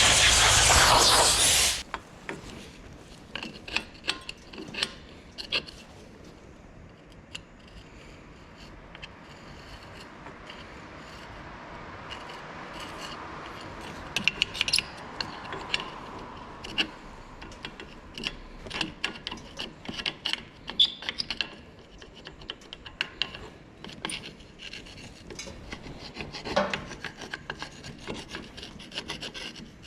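Loud spray hiss that cuts off sharply about two seconds in, then quiet rubbing and scraping with scattered light clicks of metal brake parts being handled and wiped.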